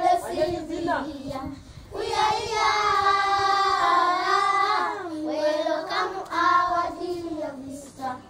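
Children singing a song together, with a long held note about two seconds in.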